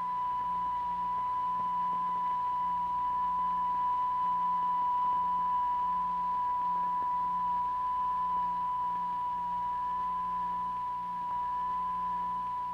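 A steady, high-pitched pure electronic tone held at one pitch: the test tone whose vibration excites the cymatic powder figures. A faint low hum lies underneath.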